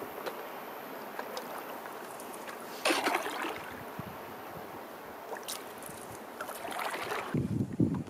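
Water trickling and lapping along the hull of a cedar strip canoe under way, with paddle splashes, the loudest about three seconds in. Near the end, wind starts buffeting the microphone.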